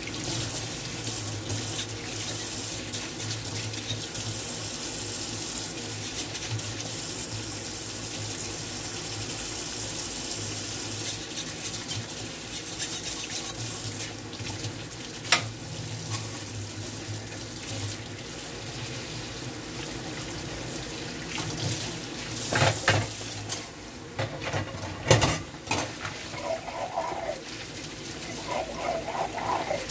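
Tap water running steadily into a stainless steel sink as dishes are washed by hand, with a few sharp clinks of dishware knocking against the pot, about halfway through and twice more later on.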